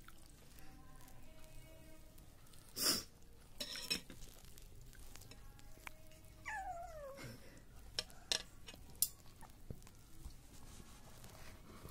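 A kitten meows once about six and a half seconds in, a single call falling in pitch. Short rustles and sharp clicks come from around it as it eats a piece of food.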